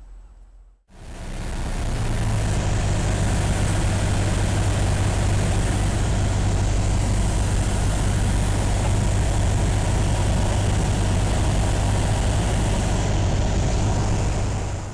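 Cessna 172's piston engine and propeller running steadily in flight, heard inside the cabin with air rushing past and a strong low hum; it cuts in suddenly about a second in.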